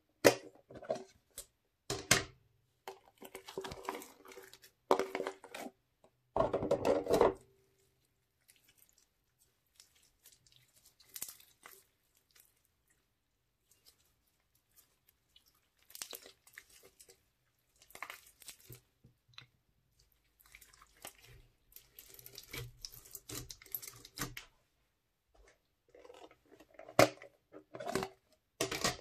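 Hands handling slime and plastic storage boxes: sharp clicks of plastic box lids and latches near the start and again near the end, with sticky squishing and short crackles of slime being pressed and pulled by hand in between. The loudest stretch comes about seven seconds in.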